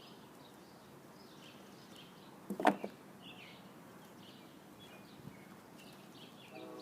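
Small birds chirping faintly and repeatedly in the background, with a brief cluster of two or three knocks about two and a half seconds in.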